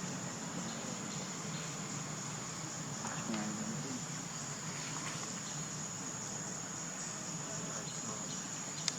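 A steady, high-pitched drone of insects in the background, with a brief faint call about three seconds in and a sharp click near the end.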